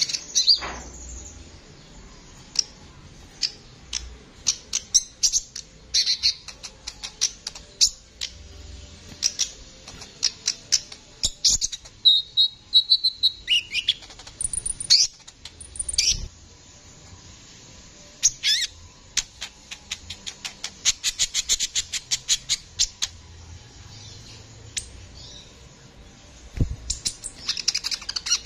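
Male Van Hasselt's sunbird (kolibri ninja) singing: rapid runs of sharp, high chips and fast trills, broken by a few thin whistled notes about halfway through and a long fast ticking trill later on.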